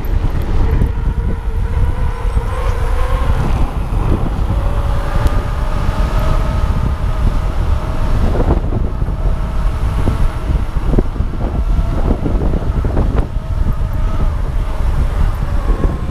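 Wind buffeting the microphone of a camera on a moving electric mountain bike, over the low rumble of its tyres on the road. A faint whine from the bike's motor shifts up and down in pitch, and a few knocks from bumps come in the second half.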